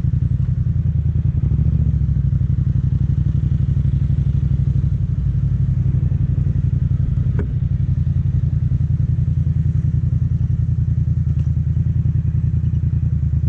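Yamaha MT-07's parallel-twin engine running steadily, with a brief sharp click about seven seconds in.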